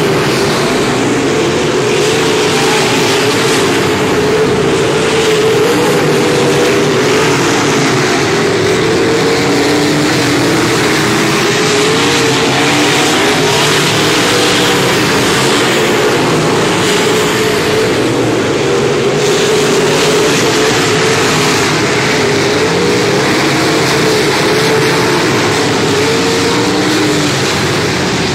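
A field of dirt modified race cars running together at speed, their V8 engines loud and continuous. Several engine notes overlap and waver up and down as the cars accelerate and lift through the turns.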